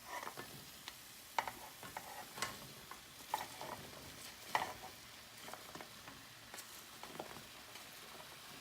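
Spoon scraping and clicking against a pan while cauliflower florets are stirred into a frying onion-tomato masala, with a faint sizzle underneath. The knocks come irregularly, a few each second or so.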